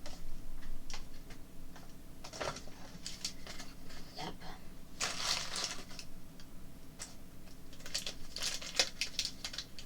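Small plastic pieces and packaging being handled: scattered clicks and taps, with bursts of crinkling about five seconds in and again near the end.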